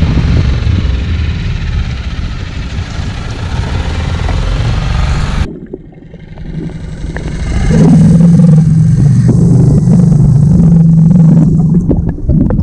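Small boat's outboard motor running, first heard above water as a dense rushing noise with a low engine rumble. After a sudden cut about halfway, it is heard underwater as a steady low drone while the propeller turns and churns up bubbles.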